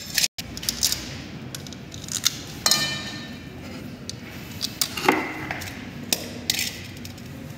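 Hand tools clinking and tapping on metal at an exposed motorcycle engine: scattered short knocks and clinks, one ringing metallically just under three seconds in.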